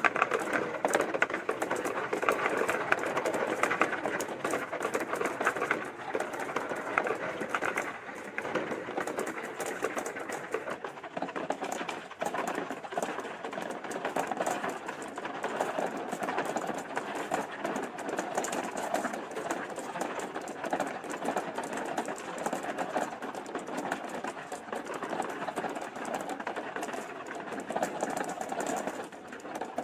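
Many marbles rolling and clattering down a plastic track, a steady dense stream of rapid small clicks and rattles.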